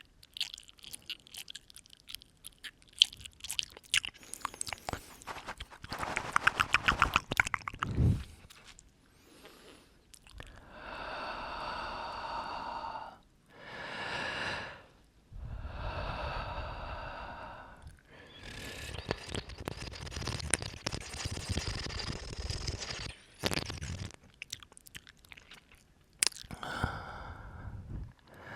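Close-up ASMR mouth sounds: wet clicks and smacks from lips and tongue, crowded together for the first several seconds. Then come four long breaths blown into the microphone, each one to five seconds, followed by a few more mouth clicks near the end.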